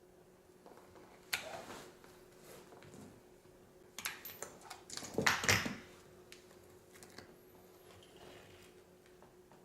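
Handling noise: a sharp knock with rubbing about a second in, then a louder cluster of clicks, knocks and rubbing around the middle, like things being moved about on a workbench, over a faint steady hum.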